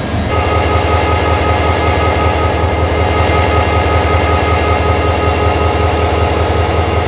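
EMD HGMU30 diesel-electric locomotive's engine running steadily, heard close through the open engine-room doors: a deep, even hum with a steady high whine above it.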